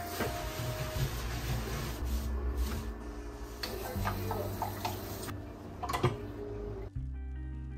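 Tap water running into a stainless-steel kitchen sink as glasses are rinsed by gloved hands, with a few sharp clinks of glass set down on the steel drainer. About seven seconds in the water sound gives way to background music.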